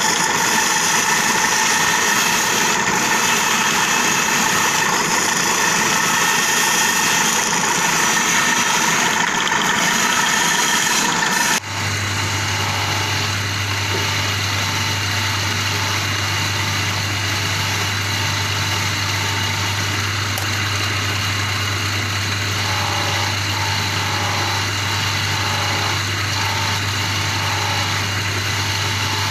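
Motor-driven lapidary polishing wheel running steadily while turquoise stones are pressed against it to finish their polish. About twelve seconds in the sound changes abruptly, and a steady low hum takes over.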